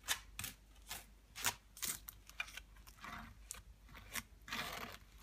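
Metal spoon scraping over a crisp ribbed wafer cake layer, spreading thick boiled condensed milk: a run of short, irregular scratchy strokes, with two longer scrapes in the second half.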